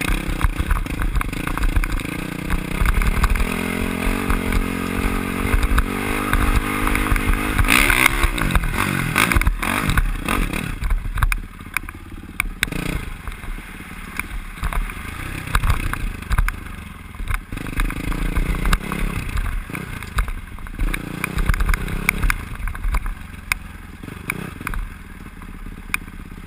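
Dirt bike engine under way, rising in pitch as it accelerates through the first several seconds, with a brief loud rush about eight seconds in. It then revs up and down over rough ground with rattles and clatter, and runs lower and quieter near the end as the bike slows.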